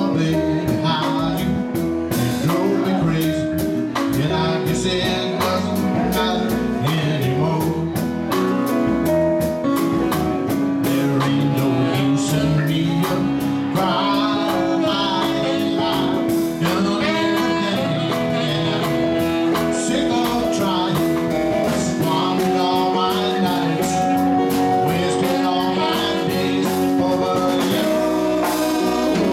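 Live blues band playing: a saxophone lead over electric guitar, keyboard, bass and drums, with a man singing at times.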